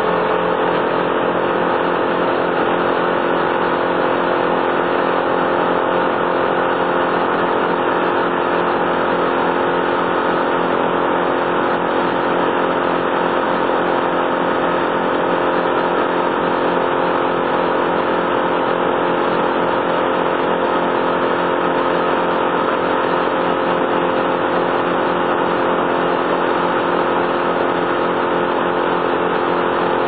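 An engine running at a steady, unchanging speed throughout, with no revving.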